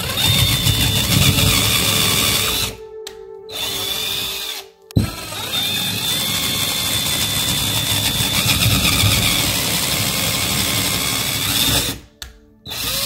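Cordless drill with a twist bit boring holes through drywall. The drill runs in several spells with short stops between them, the longest about seven seconds, and spins up briefly once more near the end.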